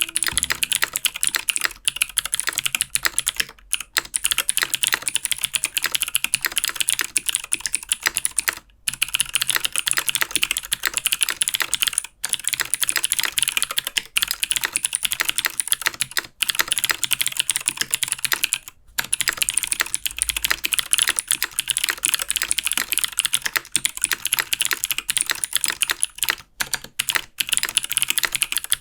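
Fast, continuous typing on a mechanical keyboard with Helix Skylar clicky switches: a dense run of sharp key clicks, broken by a few short pauses.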